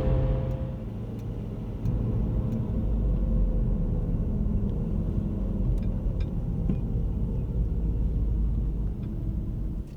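Car driving on the road: a steady low engine and road rumble that grows a little louder about two seconds in.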